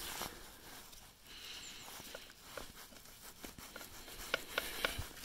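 Quiet handling noises: light clicks and scrapes of a hand unscrewing the oil dipstick from a quad's engine case, with a few sharper clicks in the second half.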